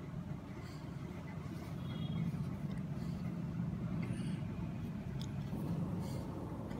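Steady low background rumble with no speech, swelling slightly a couple of seconds in.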